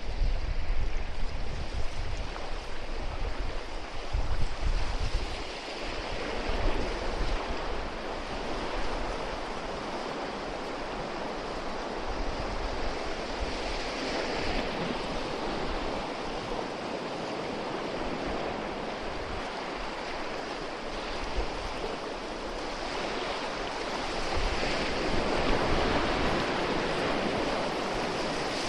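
Steady rush of mountain river rapids, with wind buffeting the microphone during the first few seconds.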